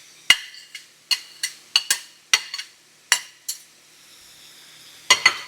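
Metal utensil clinking and tapping against a skillet and bowl as garlic and onion are added to drained ground beef, about a dozen sharp ringing clinks at an irregular pace. They pause from about 3.5 to 5 seconds, where the pan is faintly sizzling.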